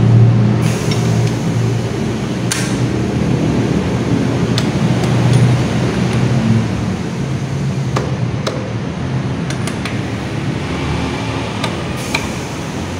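Light metallic clicks, scattered a second or two apart, as lug nuts are spun onto a car wheel by hand and then snugged with a wrench, over a steady low hum.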